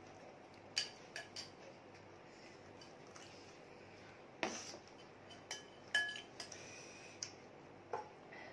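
A metal spoon clinking and scraping against a glass bowl as food is scooped and stirred: a series of about eight sharp clinks, a few with a short glassy ring.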